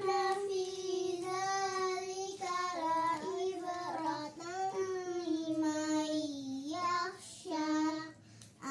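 A young girl chanting a Quran verse in a slow, melodic recitation tune, holding long drawn-out notes with a short break and a lower note near the end.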